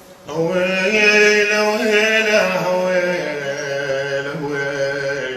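A man singing a long, drawn-out Arabic folk vocal line in mawwal style, holding sustained notes that step down in pitch about halfway through.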